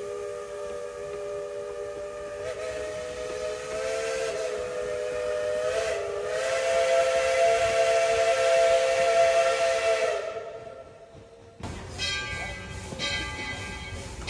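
A steam locomotive's chime whistle blowing one long blast, a chord of several close tones that swells louder and then fades away about ten seconds in. Near the end comes a run of clanging strikes with ringing tones, like a locomotive bell.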